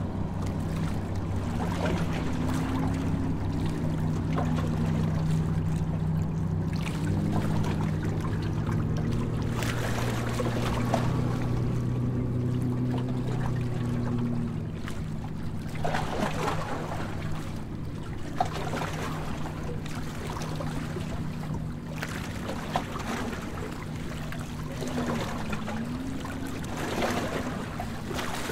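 Harbour tour boat underway: its engine hums steadily while water splashes and rushes along the hull. The deepest part of the hum drops away about halfway through.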